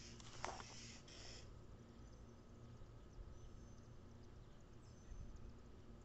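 Near silence: faint outdoor background with a low rumble and a short call falling in pitch about half a second in, then a few very faint high chirps.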